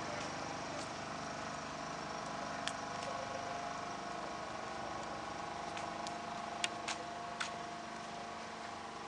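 Steady mechanical hum, several steady tones over an even noise, with a few faint clicks about a third of the way in and again two-thirds through.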